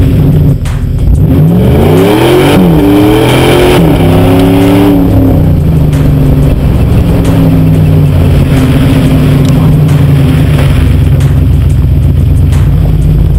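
2000 Dodge Dakota's 4.7-litre Magnum V8 running through its exhaust while driving: the revs dip, then climb hard about a second in, dip and climb again, and fall back to a steady cruise from about five seconds on. A rush of wind noise rises during the acceleration.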